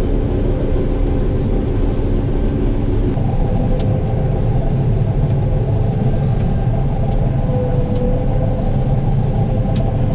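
Vehicle engine running steadily while driving, a continuous low rumble with a few light clicks or rattles.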